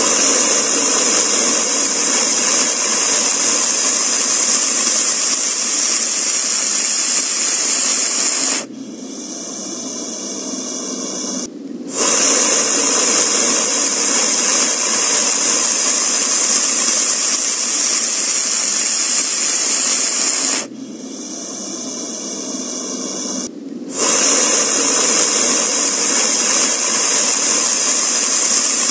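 Loud, steady hissing in stretches of about nine seconds. Twice it stops for about three seconds, leaving a quieter sound, then comes back suddenly, repeating like a loop about every twelve seconds.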